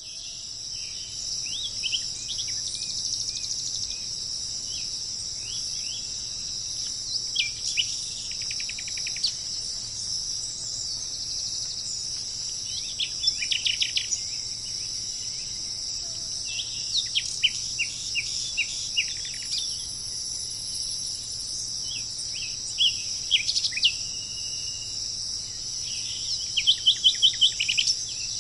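A steady high-pitched insect chorus, with a bird repeatedly calling in short bursts of quick, downward-sweeping notes. Near the end comes the loudest burst, a run of about seven evenly spaced notes.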